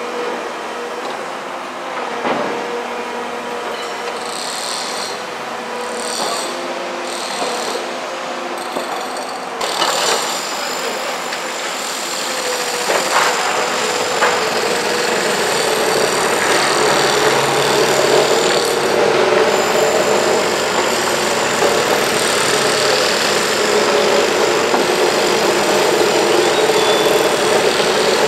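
Komatsu PC210LC hydraulic excavator's diesel engine and hydraulics running under load as it works a gravel pile, with a few sharp knocks in the first half. The engine gets louder and deeper about halfway through.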